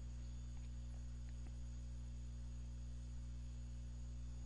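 Steady low electrical hum with several evenly spaced tones, over faint hiss, with a few faint clicks in the first second and a half.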